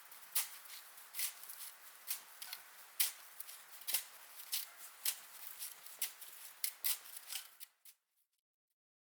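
Footsteps crunching in snow at a walking pace, a sharp crunch roughly every half second to second, stopping suddenly about eight seconds in.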